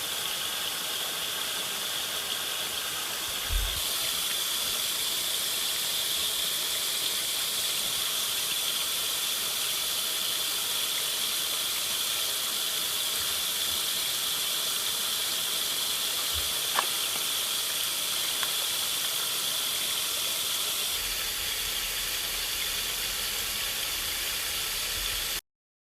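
Steady rain falling, an even hiss with a constant high-pitched ring running through it and a few faint taps and low thumps. The sound cuts off abruptly near the end.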